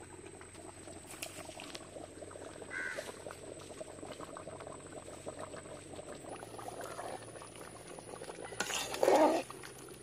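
Chicken gravy simmering at a boil in a large aluminium pot, a faint steady bubbling. A short louder sound comes near the end.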